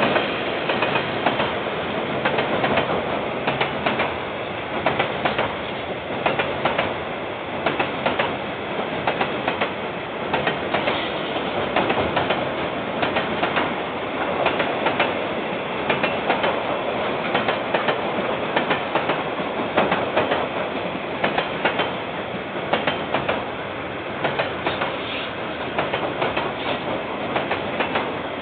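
KiwiRail train's wagons rolling past, their wheels clicking steadily over the rail joints with a continuous rumble underneath.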